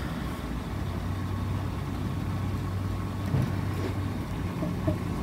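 A steady low mechanical rumble and hum, like an engine running, with a couple of faint small knocks near the end.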